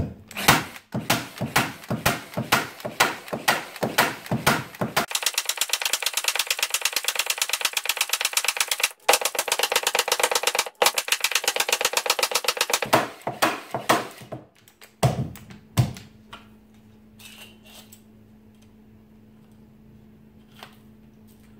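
Milwaukee M12 cordless T-50 crown stapler bump-firing 9/16-inch staples into pine, a sharp snap with each shot at about three a second. About five seconds in, the shots run together into a dense, rapid rattle from footage sped up fourfold, lasting about eight seconds. A few more separate shots follow before it falls quiet.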